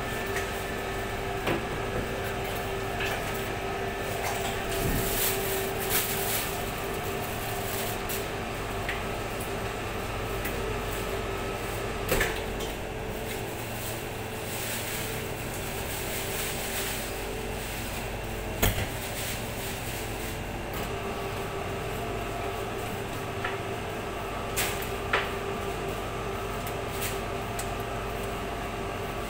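Butcher-shop work sounds: a steady machine hum with a held tone, over which a knife and a pig carcass being worked on a cutting table give scattered clicks and knocks. A few of the knocks stand out sharply.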